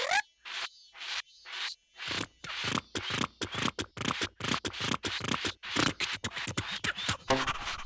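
Cartoon sound effect of a bendy plastic drinking straw being pulled taut in a tug of war: a run of short scratchy scraping strokes, a few a second at first and quickening after about two seconds.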